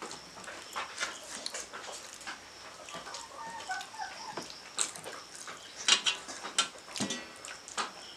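Eating by hand from metal plates: fingers mixing rice and tearing chicken, with scattered sharp clicks and scrapes against the plates, the loudest about six seconds in. A faint high whining call wavers briefly a few seconds in.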